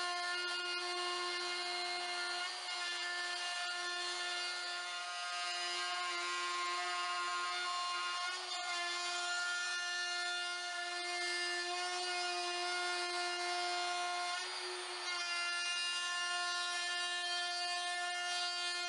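DeWalt compact router running at full speed with a steady high whine and the hiss of the bit cutting a groove along a plywood strip. The sound dips briefly three times as the cut is paused or shifted.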